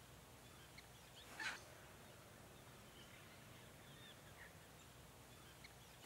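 Faint, scattered short bird chirps and calls over a quiet hiss, with one louder, sharper call about a second and a half in.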